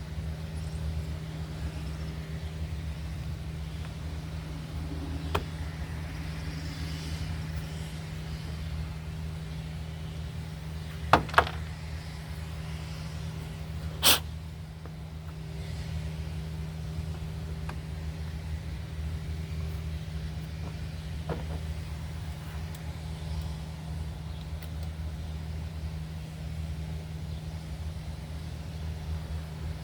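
Steady low background hum, with a few sharp clicks and knocks of tools or small parts being handled. The loudest are a quick pair about eleven seconds in and a single click about three seconds later.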